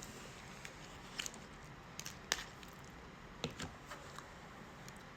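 Close-miked eating of KFC food: chewing with a handful of sharp, crisp crunches and mouth clicks at uneven intervals.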